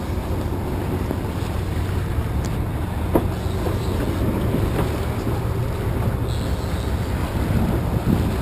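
Yacht's engines running steadily under way, a low rumble with wind and water rush over it, and a light knock about three seconds in.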